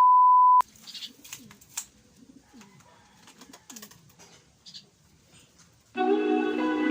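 A steady electronic beep for about half a second, then domestic pigeons cooing softly, with a few light clicks. Guitar music comes in near the end.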